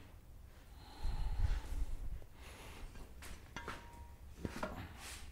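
Handling knocks and metal clicks as an electric motor on a welded steel mount is lowered onto a small tractor's frame for a test fit. A low rumble comes about a second in, then a series of sharp knocks and clinks, one ringing briefly.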